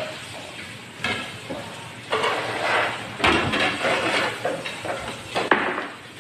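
Dishes and utensils clattering and knocking at a dining table, with a sharp knock about five and a half seconds in.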